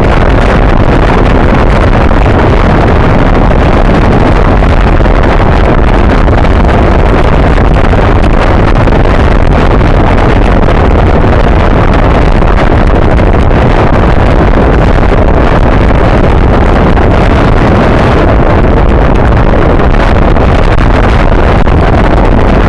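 Loud, steady wind rush buffeting the microphone of a front-facing camera on a bicycle riding at race speed.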